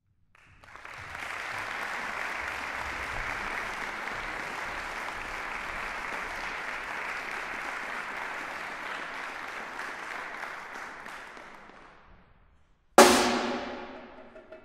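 Audience applause that dies away, a brief silence, then one loud stick hit on a drum kit that rings and decays, with quick drum strokes starting just at the end.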